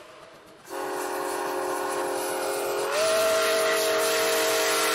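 Steam locomotive whistle: one long blast of several tones sounding together with steam hiss, starting about a second in. Halfway through, its pitch rises slightly and it gets louder.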